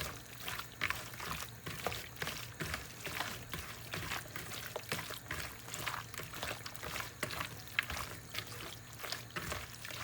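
Pieces of fish being mixed into a wet chermoula marinade of spices, garlic and lemon juice: irregular wet squelching and small clicks throughout.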